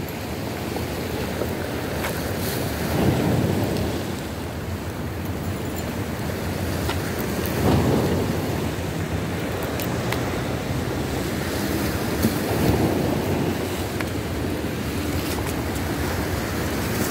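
Choppy sea waves washing onto the shore, with wind on the microphone; the surf swells up about every four to five seconds.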